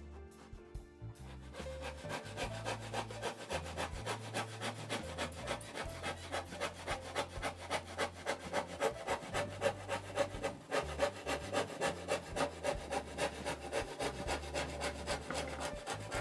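Hand saw cutting through wood in quick, even back-and-forth strokes, about three a second, starting a second or two in, with background music underneath.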